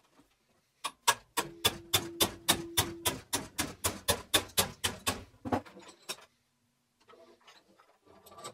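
Steel bench vise being worked by its handle: a quick, even run of metallic clicks, about five a second for some four seconds, with a faint ring under the first of them. Softer scraping follows near the end.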